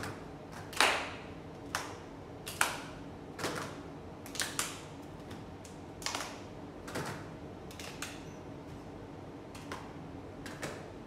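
Hand claps from a small group of children and their teacher doing body percussion, about one clap a second in a loose rhythm. The claps are sharp at first and grow softer over the second half.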